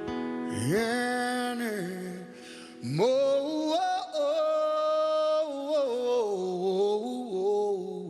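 A male voice singing a wordless ad-lib with light backing music. The voice swoops up into a long held note about half a second in, and again about three seconds in, then bends down through several shorter notes.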